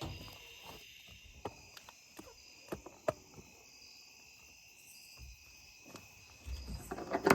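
Crickets chirping steadily, with scattered sharp clicks and knocks. Louder knocking and rustling from about six and a half seconds in.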